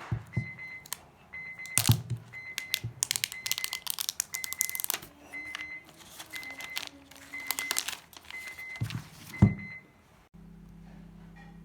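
Plastic packaging crinkling and tearing as a phone box is unboxed, over a short high beep that repeats a little more than once a second. Near the end the crinkling stops and a steady hum takes over.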